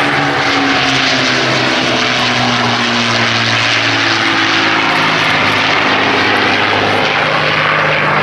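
Avro Lancaster bomber's four Rolls-Royce Merlin piston engines running in a low flypast, a loud, steady propeller drone. Its pitch drops slightly a few seconds in as it passes overhead.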